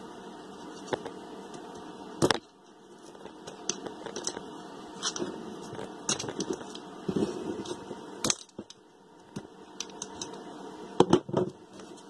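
Metal tool clicking and scraping on the shaft seal of a hydronic circulator pump as the old seal parts are pried out, with a sharp knock about two seconds in, another past the middle, and two more close together near the end as the metal pump is handled on the bench.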